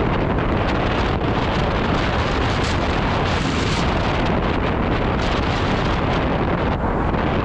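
Wind buffeting a GoPro's microphone while riding an electric scooter at speed: a steady, loud rushing noise with no engine note.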